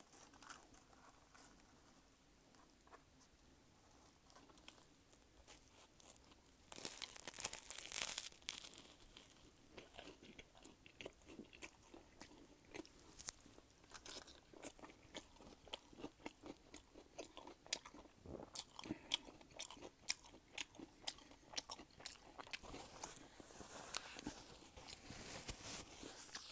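Close-miked bite into a toasted meatball sub, loudest as a crunch about seven seconds in, followed by open-mouthed chewing with many small crackles and wet clicks.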